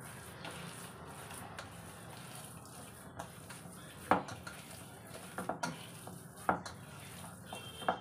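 Soft kofta mixture being mixed by hand in a stainless steel bowl: quiet squishing with a few sharp clinks of metal against the bowl, the loudest about four seconds in and others about five and a half and six and a half seconds in.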